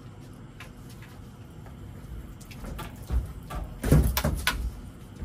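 A few dull knocks and thumps from fishing rods and gear being handled on a raft deck, the loudest cluster about four seconds in, over a faint steady background hiss.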